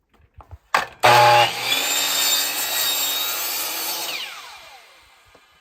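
Electric power saw cutting through wood: the motor starts about a second in, cuts for about three seconds, then the blade coasts down with a falling whine.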